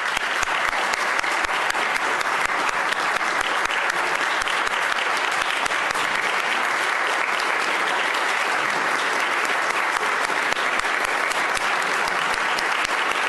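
Sustained applause from a roomful of people, many hands clapping in a dense, steady wash.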